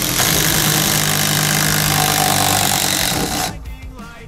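Makita cordless impact driver hammering steadily on its fourth power setting as it drives a screw, stopping about three and a half seconds in.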